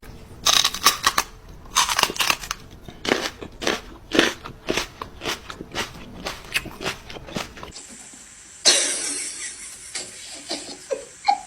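Irregular close crunching clicks, several a second, then about eight and a half seconds in a sudden hiss that fades over a couple of seconds.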